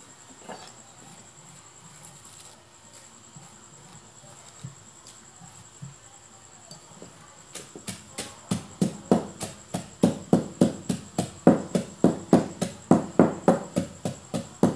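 Wooden pestle pounding crisp dried fish in a clay mortar. The strokes start about halfway through and go in a steady series of dull knocks, about three a second. A steady high insect trill runs behind.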